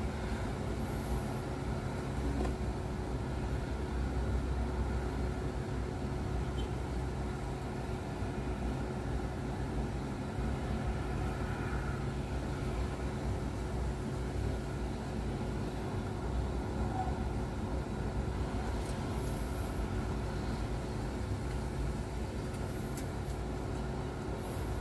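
Steady low mechanical hum with a faint constant tone running through it, even in level throughout.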